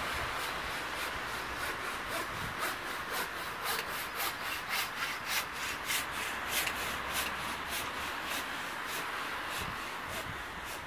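Steady street traffic noise with a rhythmic scraping rub, about two strokes a second, in step with walking.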